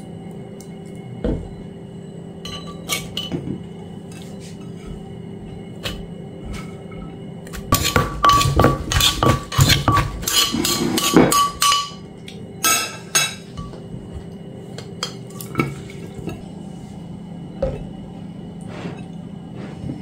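Wooden pestle knocking in a clay mortar and a metal spoon clinking against the bowl, pounding and tossing shredded cucumber and papaya salad. Scattered single knocks, with a dense run of rapid pounding and clinking in the middle lasting about four seconds.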